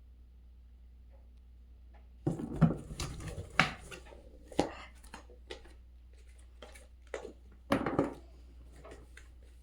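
Irregular knocks, clatters and rustles of a cat playing, batting a small object about on a hard surface. The loudest clatters come about two and a half seconds in and again near eight seconds.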